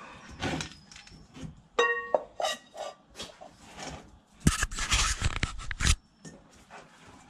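Stainless steel dog bowls clinking and scraping as they are stacked, one ringing briefly about two seconds in. Then a plastic bag crinkles loudly for about a second and a half.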